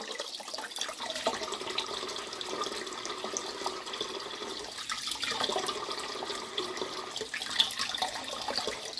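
Hot water tap running steadily into a sink, its flow weakened: the pressure drops the longer the water runs while the water heater tank is being emptied.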